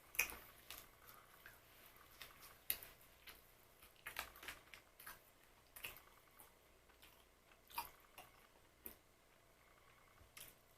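Biting and chewing crisp sfogliatine glassate, glazed puff-pastry biscuits: a sharp crunch at the start, then irregular crackly crunches every half second to a second.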